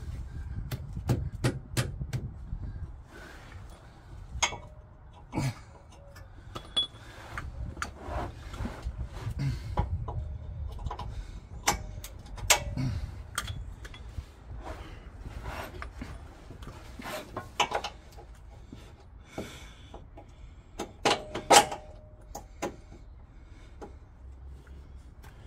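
Scattered metallic clinks and knocks from a steel lower control arm being worked into place on a van's front suspension, a few of them ringing briefly. The loudest are two sharp knocks a few seconds before the end.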